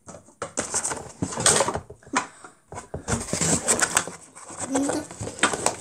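Plastic parts of a toy slime-making kit clicking and rustling as they are handled and set down. A short child's vocal sound comes near the end.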